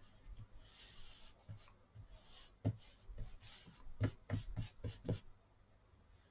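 Hands pressing and dabbing a paper towel laid over wet acrylic paint on paper, blotting off excess paint: soft rustling and rubbing of the paper, then a quick run of light pats near the middle and toward the end.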